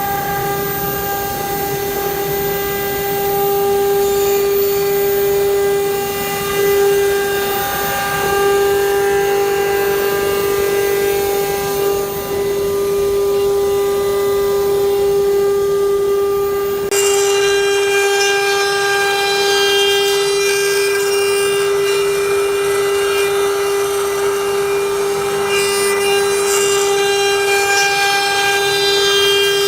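CNC router spindle running with a steady high-pitched whine while it carves wood. The background noise under the whine changes abruptly about seventeen seconds in, while the whine keeps the same pitch.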